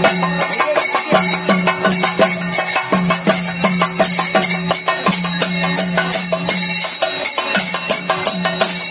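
Fast traditional percussion music: dense drum strokes and jingling metal cymbals over a low held note that breaks off every couple of seconds.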